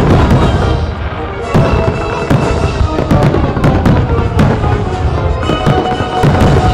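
Aerial fireworks shells bursting in rapid succession, loud overlapping bangs and crackles with a deep rumble, over music playing underneath.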